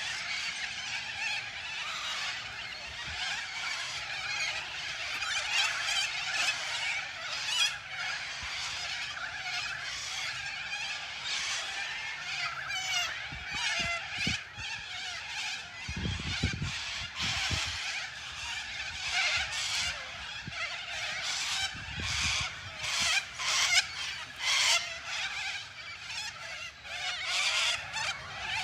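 A dense chorus of wild animal calls: many overlapping chirps, trills and honk-like calls over a steady insect-like buzz, typical of frogs and insects calling together. Two brief low rumbles come in the second half.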